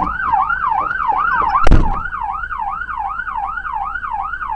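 Police car siren in a fast yelp, rising and falling about four times a second, with a single sharp thump a little under two seconds in.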